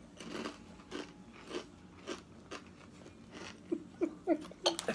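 A person chewing crunchy chips, a string of short crunches. Near the end, short bursts of laughter are the loudest sound.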